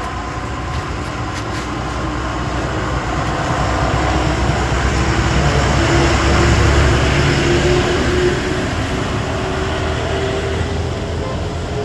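A large motor vehicle passing close by: engine and tyre rumble that builds to its loudest about halfway through and then fades.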